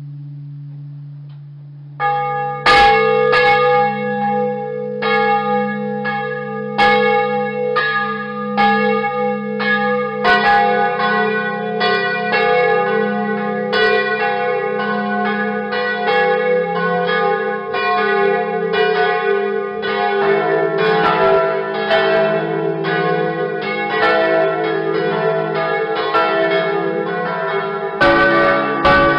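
Several church bells ringing a peal. A fading bell hum opens it, then strikes follow about two a second with long overlapping ringing. More bells join about ten seconds in, and the pitches shift near the end.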